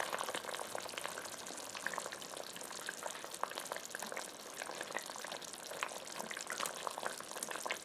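Chicken curry with potatoes simmering in a cast-iron Dutch oven: a steady bubbling sizzle with many small clicks and scrapes as a silicone spoon stirs through the pot.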